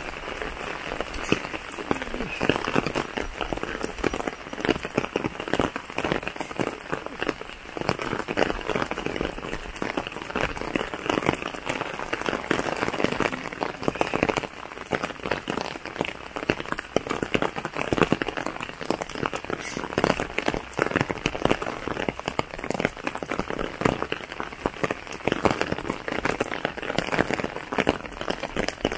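Steady rain falling, with many sharp hits of individual drops close by.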